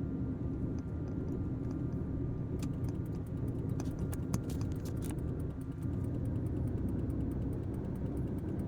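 Truck engine running steadily under way, heard from inside the cab, with a few sharp clicks and ticks between about two and a half and five seconds in.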